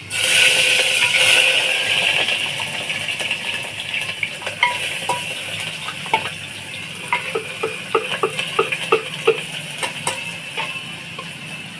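Chopped onion dropped into hot oil in an aluminium pressure cooker, hissing loudly at once and sizzling steadily as it fades. From about four seconds in a metal spoon stirs the onion, clinking against the pot, quickly and regularly near the end.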